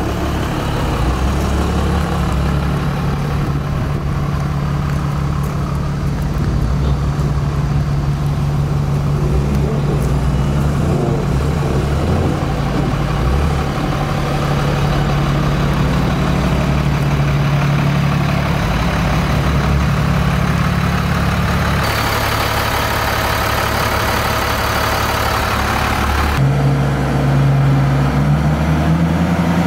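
Cummins ISC inline-six diesel engine of a Freightliner FL80 dump truck idling steadily. About two-thirds of the way through, a hiss joins for a few seconds and the engine's tone changes abruptly.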